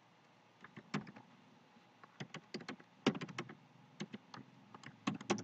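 Typing on a computer keyboard: irregular runs of quick key clicks, starting about a second in.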